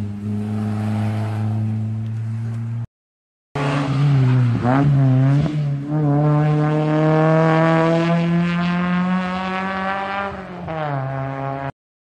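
Rally car engine revving hard, with quick up-and-down revs and then a long climb in pitch over about four seconds before it drops away. A steady drone comes before it, and the sound cuts out briefly twice.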